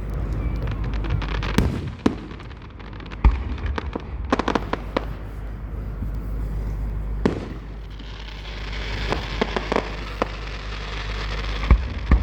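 Aerial fireworks going off: a series of sharp bangs over a low rumble, the loudest about three seconds in and again near the end, with crackling between about eight and eleven seconds.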